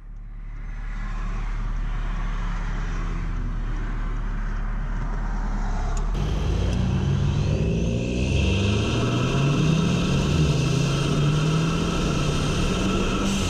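Audi S3's turbocharged four-cylinder engine, fitted with an aftermarket CTS intake and turbo inlet, running as the car drives. About halfway through it accelerates, the engine note rising in pitch, then it carries on at a louder, steadier run.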